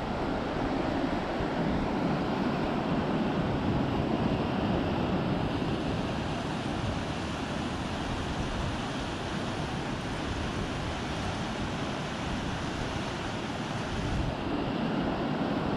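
Truckee River water flowing, a steady rushing noise with no let-up.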